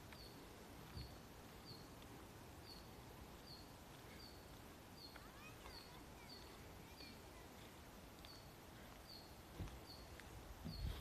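Faint outdoor ambience: a short, high chirp repeats evenly about every two-thirds of a second, with a few softer bird twitters about halfway through. A low bump comes near the end.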